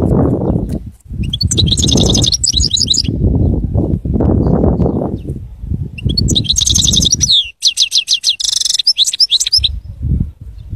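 European goldfinch singing two phrases of rapid, high, tinkling twitters, the first about a second in and the second from about six seconds. A loud low rumbling noise comes and goes underneath.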